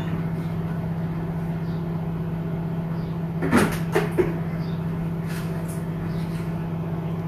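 Refrigerator door being opened: a short cluster of knocks and clicks about three and a half to four seconds in. A steady low electrical hum runs underneath.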